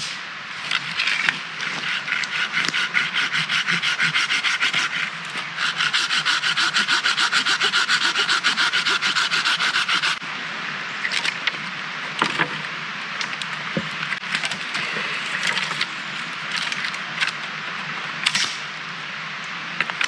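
Hand saw cutting through a wooden branch in rapid back-and-forth strokes, with a short break about five seconds in; the sawing stops about ten seconds in. After that come rustling and a few sharp snaps and knocks of sticks and branches being handled.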